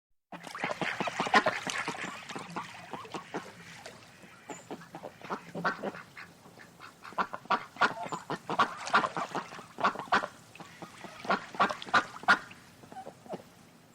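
A flock of birds calling, many short calls in quick succession, overlapping. The calls are thick at the start, thin out for a few seconds, then come thick again from about seven seconds in.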